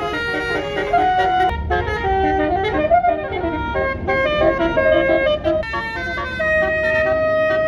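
Telolet basuri bus horn, a multi-trumpet musical air horn, playing a melody of held notes that step up and down, with a pitch swoop about three seconds in and a long held note near the end.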